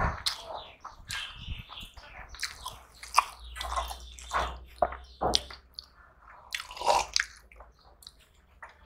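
Close-miked eating by hand: chewing with an open mouth and wet squishing of rice mixed with dal, in irregular clicks and smacks.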